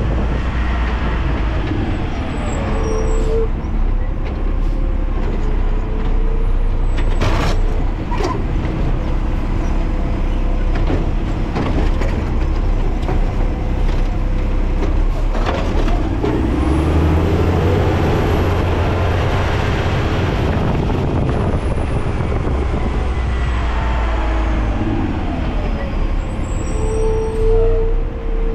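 Garbage truck's diesel engine running steadily, with a brief squeal about three seconds in and again near the end, and a few sharp knocks. The engine gets louder for several seconds in the middle.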